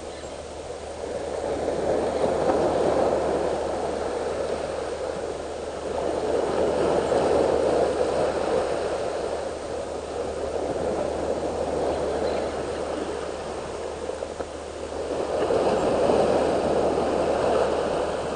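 Sea waves washing and surging among the boulders of a rock breakwater, a rushing, foaming wash that swells up and falls back three times.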